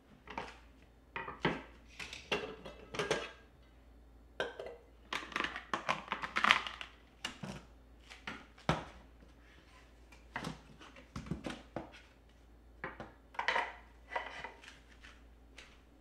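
Kitchen items being handled on a countertop: irregular light knocks and clinks as things are picked up and set down, with the rustle of a cloth wiping.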